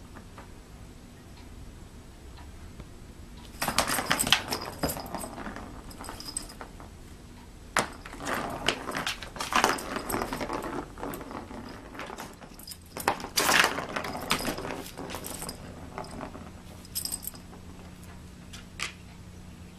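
A small plastic ball clattering and rolling around a plastic circuit track as a cat bats at it, in three spells of rapid rattling and clicking, then a few single clicks near the end.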